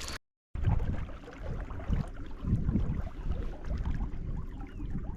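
Low, uneven rumble of a small fishing boat on the water, with faint water sounds; the sound drops out completely for a moment just after the start.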